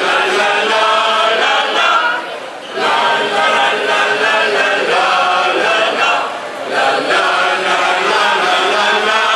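An amateur choir of many voices singing a song together, in phrases with short breaks for breath about two and six seconds in.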